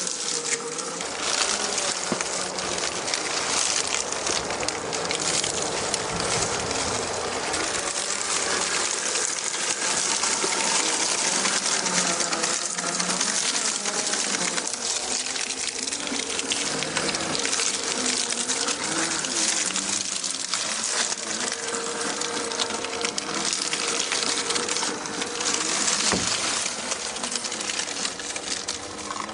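Traxxas TRX-4 RC crawler's electric motor and geared drivetrain whining, the pitch wavering up and down as the throttle changes, over a steady hiss.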